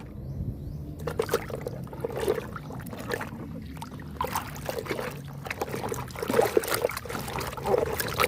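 Water trickling and splashing in irregular small spurts as a muddy toy truck is rinsed clean, starting about a second in.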